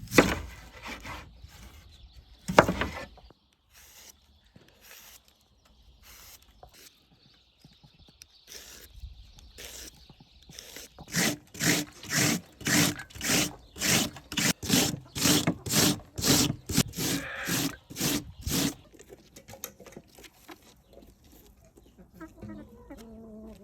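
A radish being grated by hand: a regular run of rasping strokes, about two a second, that stops short near the end. Two sharp knocks come in the first few seconds.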